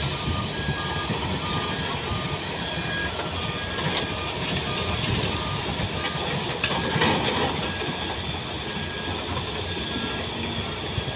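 Two heavy-vehicle reversing alarms at slightly different pitches beeping in short, alternating pulses over the steady running of diesel earthmoving machinery: tracked excavators and tipper trucks. A brief louder clatter comes about two-thirds of the way through.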